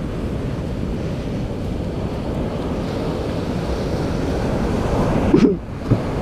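Ocean surf washing on the beach with wind rumbling on the microphone, swelling slightly; a brief sound and a short knock near the end.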